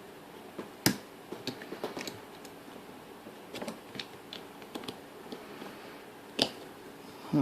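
Scattered small clicks and taps of metal lock parts being handled as a lock cylinder is taken apart, with a sharper click about a second in and another near the end.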